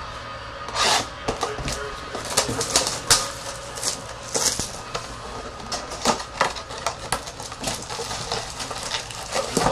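Trading card foil packs being torn open and the cards inside handled and shuffled: a quick, irregular run of crinkling rustles and light taps.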